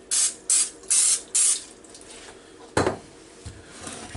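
Aerosol can of Pam canola-oil-blend cooking spray giving four quick sprays, each a short hiss. A single knock follows a little under three seconds in.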